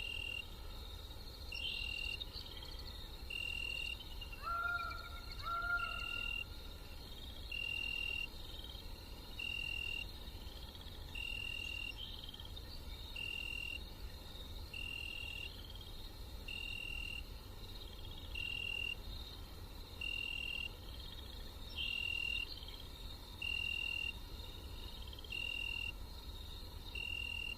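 Night-time forest ambience: insects chirping in a steady chorus, with one high chirp repeating about every second and a half. Two short lower calls come in about five seconds in.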